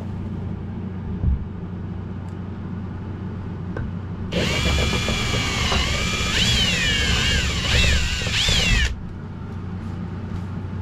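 Kobalt cordless drill boring a small pilot bit through the boat's wall. It starts about four seconds in and runs for about four and a half seconds, its whine dipping and rising as the bit bites, then stops.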